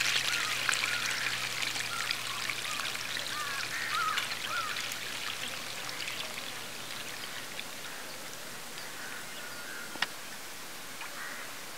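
Starchy rinse water splashing and trickling as it is poured off soaked rice from a pot, running over a hand onto the ground. The splashing is loudest at first and dies away to a faint trickle over the first half, with a few short chirps early on and a single click about ten seconds in.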